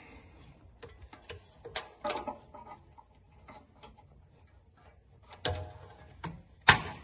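Metal hand tools clicking and clanking in irregular taps while working on the car, with a few ringing metallic knocks; the loudest is a sharp clank near the end.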